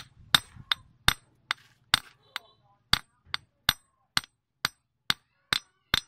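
Hand hammer striking a small metal fitting on a steel wire cable against a steel block: about two sharp blows a second, each with a short metallic ring, with a pause of about a second midway.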